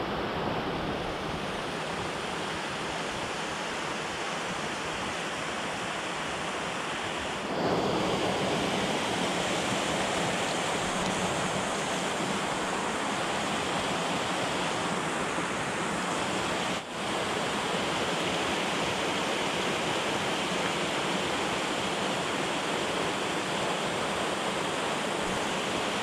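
Small Appalachian mountain stream cascading over rocks: a steady rush of water. It steps a little louder about a quarter of the way in and drops for an instant about two-thirds through.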